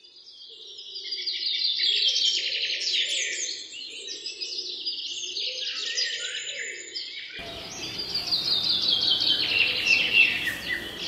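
A chorus of small birds chirping and twittering in quick, overlapping calls, fading in over the first two seconds. About seven seconds in, a steady hiss joins beneath the birdsong.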